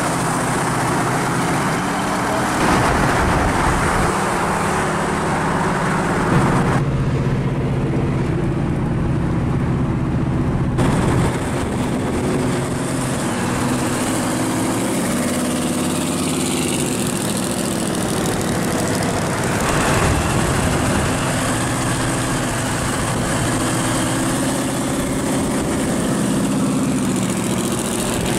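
Hot-rod V8 engines running at cruising speed alongside the camera car, over road and wind noise. First comes a red 1930s coupe with an exposed V8, then an orange Chevy Vega wagon with a supercharged V8. The engine note rises and falls partway through.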